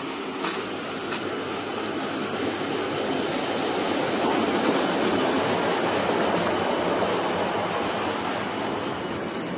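Steady rush of water pouring over a small concrete dam, growing louder about halfway through and easing off near the end. Two faint ticks sound early on.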